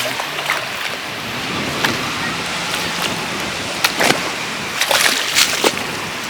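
Water splashing and sloshing over a steady rush of surf on a rocky shore, with several sharp splashes in the second half.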